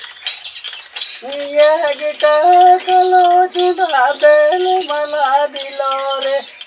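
A man sings a Bengali-language folk song in a high voice to accompany Chadar Badani puppetry. The singing starts about a second in, with long held notes broken by short wavering turns. Light clicks run underneath.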